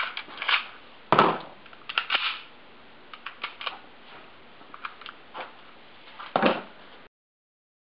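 Sharp metallic clicks and clacks from a Taurus PT92 pistol being handled, an irregular string of them with two louder clacks, one about a second in and one near the end.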